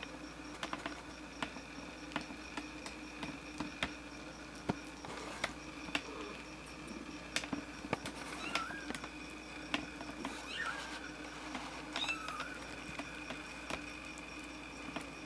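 23-day-old kittens mewing, three short thin high mews in the second half, over scattered small clicks and taps.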